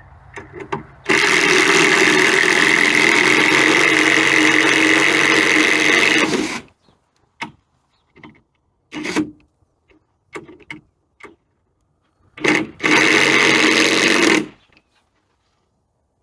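A loud motor-driven tool running in two bursts, the first about five seconds long and the second about a second and a half, each starting and stopping abruptly, with short clunks and bursts between them.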